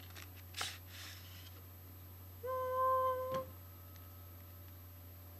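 Cardboard packaging scraping as a software box is opened, then a single held hummed note about a second long that stops with a sharp click.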